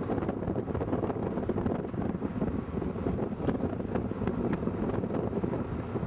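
Wind buffeting the microphone over the steady rumble of a moving vehicle, a dense low noise with a few faint clicks.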